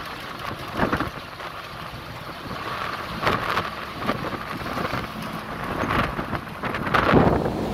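Wind buffeting the microphone through the open window of a moving vehicle, in uneven gusts that are strongest near the end, over a steady rush of road and engine noise.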